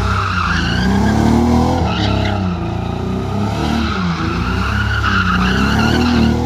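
BMW E36 drifting: the engine revs up and down several times while the rear tyres squeal in a long slide. The engine runs choppy at the top, a roughness the owner can't place.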